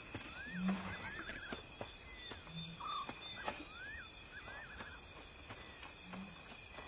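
Night-time wild ambience: a steady high insect drone with repeated short chirping calls, arched whistles and quick trills in pairs about every three seconds. A few brief low notes are scattered through.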